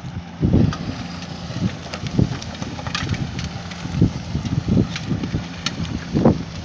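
Truck-mounted solid manure spreader at work: a steady low engine hum with irregular heavy thuds and scattered sharp clatter.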